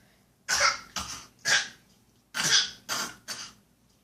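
Short, deliberate fake coughs: six quick coughs in two runs of three, the second run starting about two seconds in.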